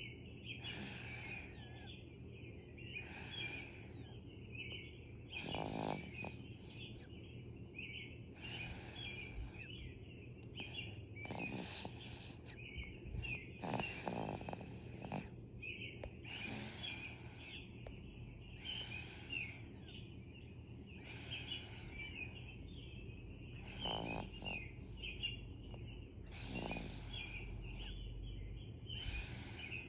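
Slow, relaxed snoring, one breath about every two and a half seconds, some of them with a low buzzing rattle. Continuous high chirping runs behind it.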